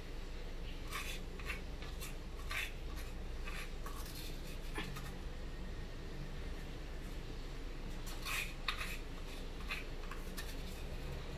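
A spoon scraping pounded spices out of a stone mortar, in a few short, irregular scrapes and taps, over a steady low hum.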